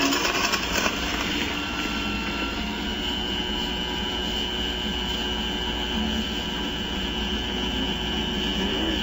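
Radio-controlled Wedico Cat 966 scale wheel loader running as it works its bucket in sand: a steady whining mechanical drone, with a thin high steady tone joining about three seconds in.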